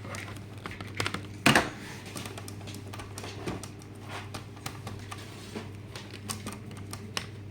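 Scattered small clicks and taps of hands handling a laptop and its charger, with one louder knock about one and a half seconds in, over a steady low electrical hum.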